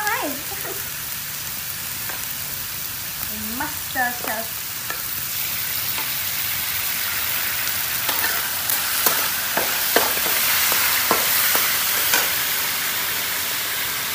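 Food frying in a large aluminium wok, a steady sizzle that grows louder partway through as dark sauce is poured into the pan. A metal spatula clicks and scrapes against the wok several times in the second half, and two short squeaky calls come near the start and about four seconds in.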